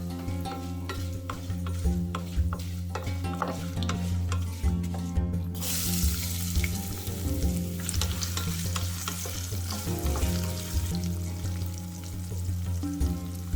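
Cooking oil in a pan sizzling as a stir-fry is made: sharp crackles and pops at first, then, about five and a half seconds in, a sudden loud sizzle as more food goes into the hot oil, which keeps on while it is stirred. Background music plays underneath.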